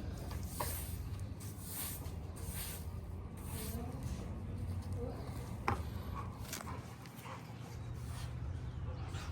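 A dog's breathing near the microphone: breathy puffs about once a second, with a sharp click a little past the middle and a steady low rumble underneath.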